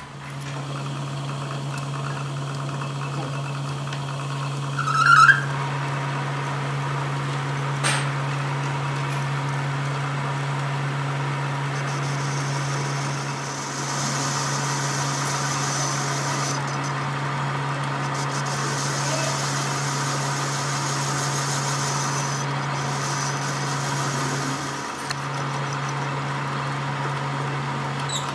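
Metal lathe starting up and running steadily with a low motor hum, a tie rod end spinning in its chuck. A brief high squeal comes about five seconds in, and through the middle a hissing cut as the tool bit faces the end of the joint housing.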